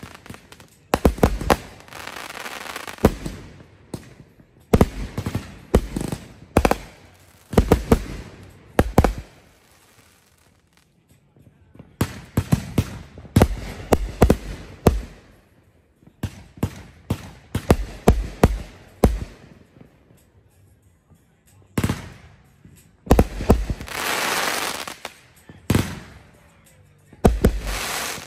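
Aerial fireworks bursting overhead: clusters of sharp bangs from exploding shells, with stretches of crackling stars. There are brief lulls about ten and twenty seconds in, and a long, loud crackle near the end.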